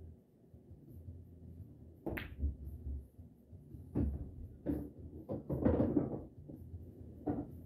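Pool shot on a Valley bar-box table: a sharp click of cue and cue ball meeting the object ball about two seconds in. Over the next few seconds come further knocks of the balls on the cushions and the object ball dropping into a pocket, with a denser rattle near six seconds.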